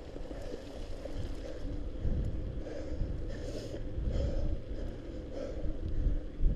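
A cyclist panting hard while climbing a hill, with short, rapid breaths repeating about every half-second over a steady low rumble.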